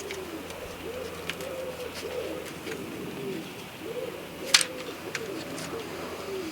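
Pigeon cooing repeatedly in a low, rolling series of phrases. A few sharp clicks sound over it, the loudest about halfway through.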